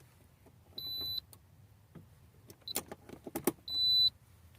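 Two short, high electronic beeps about three seconds apart, with a cluster of plastic clicks and rattles between them as the 12-volt accessory plug is handled. The beeps fit the fridge's controller cutting in and out as the loose cigarette-lighter plug loses contact.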